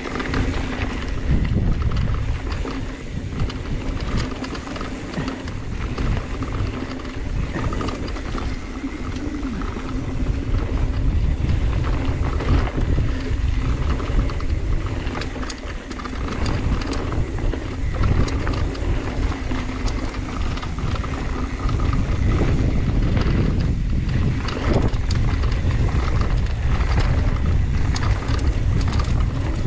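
Mountain bike ridden down a dry dirt trail: wind buffeting the body-mounted camera's microphone, with the tyres rolling over dirt and the bike clattering and clicking over bumps.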